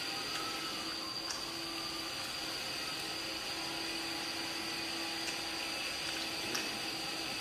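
Steady background hiss with a faint high-pitched whine and a low hum, and a few faint clicks.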